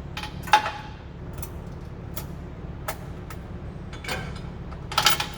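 Hand tools and metal brace parts clinking and knocking while a differential brace is worked into place under the car: about half a dozen separate clinks, the loudest about half a second in, and a quick cluster near the end.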